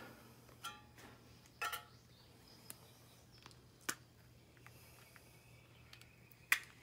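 Scattered light metallic clinks and clicks from handling a wire cage trap and its small metal bait cup, about five in all. The first two ring briefly like struck metal, and a sharper click near the end is the loudest.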